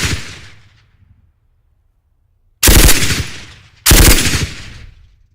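Automatic machine-gun fire in short bursts: the echo of one burst dies away at the start, then two more short bursts of rapid shots come about a second apart, each trailing off in a fading echo.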